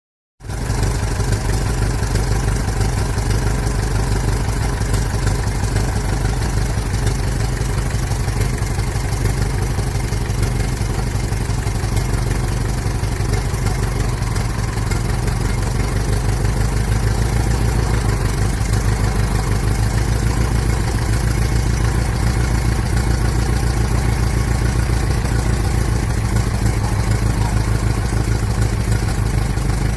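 1926 Ford Model T's four-cylinder side-valve engine running steadily at a constant speed, with a fast, even beat of firing pulses.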